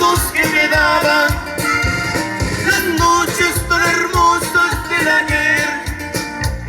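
Live band music in a Latin style: a wavering melodic lead line over a steady bass and drum beat.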